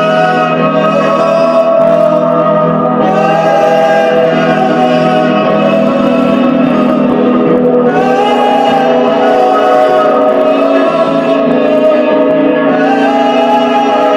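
Music: a chord of long held tones that runs without a break, with a short rising-and-falling phrase coming back about every four to five seconds.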